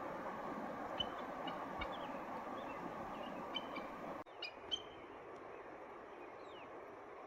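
Short, high bird chirps scattered over a steady rushing noise, likely the river. About four seconds in, the rushing drops away abruptly, leaving a quieter background with a few more chirps.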